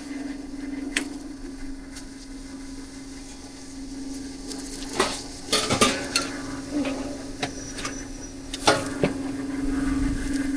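Metal cooking utensils scraping and clinking on a griddle as flatbread is cooked, with a faint sizzle and a few sharp knocks, over a steady low hum.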